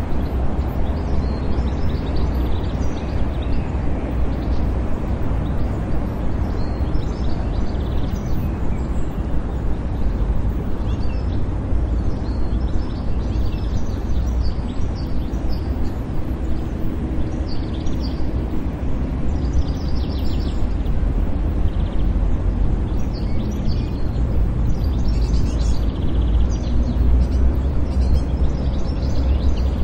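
City park ambience: a steady low rumble of distant traffic with birds chirping now and then.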